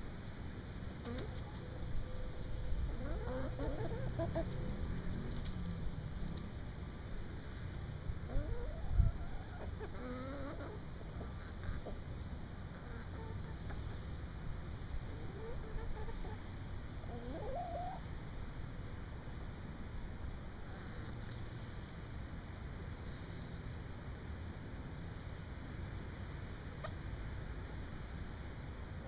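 Backyard chickens calling in scattered short rising notes as they forage, over a steady, high, pulsing insect chorus. One low thump about nine seconds in.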